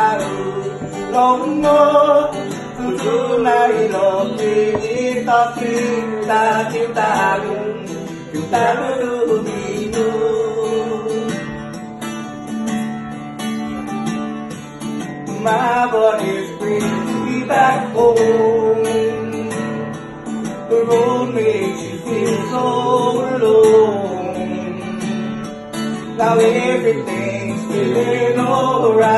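Live acoustic guitar being played, with a voice singing over it.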